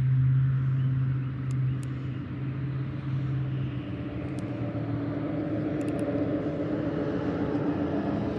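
A steady low engine hum, its pitch drifting slowly upward, with a few faint high ticks about halfway through.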